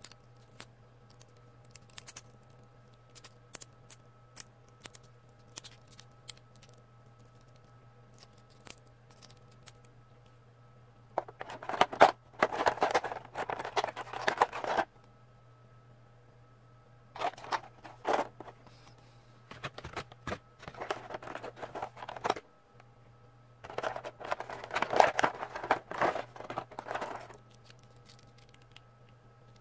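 Plastic toy packaging and figures handled by hand: scattered small clicks at first, then four bursts of crinkling and rustling, the loudest about a third of the way in and near the end, over a steady low electrical hum.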